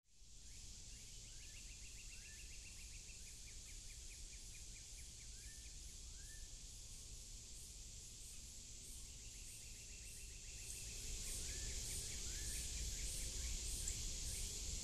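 Outdoor nature ambience: a steady hiss with repeated fast ticking trills and short upward chirps from small wild creatures. It grows louder about ten seconds in, where a high sound begins pulsing about twice a second.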